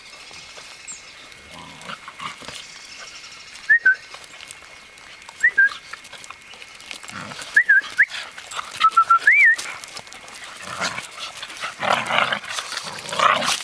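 Dogs at play: short high-pitched whines and yelps several times, bending up and down in pitch, then rougher, louder growl-like play noises near the end.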